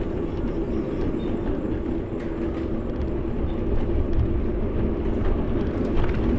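Steady rushing wind and rolling road noise from a moving bike, mostly low and dull, with a few faint ticks.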